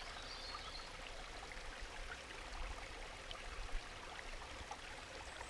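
Steady rushing of a nearby stream, with faint bird chirps near the start and a single light click a little past halfway.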